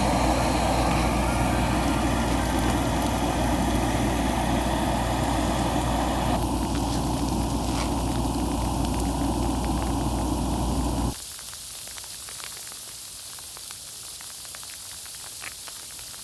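Backpacking canister gas stove burning at full flame under a pot, a loud steady hiss with a low hum; it stops abruptly about 11 seconds in. After that come quieter crinkles and small ticks as a foil food pouch is handled.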